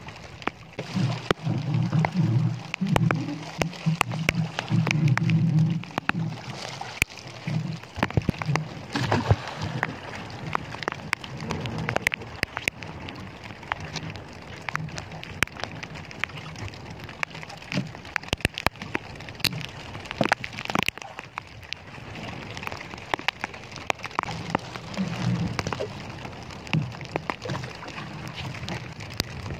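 Rain pattering on an outrigger fishing boat at sea, with many sharp drop ticks scattered throughout. A low wind rumble on the microphone is strong in the first few seconds and returns near the end.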